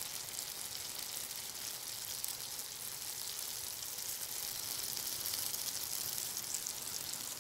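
Papaya puree sizzling in hot ghee in a frying pan: a steady crackling hiss as the wet puree meets the hot fat.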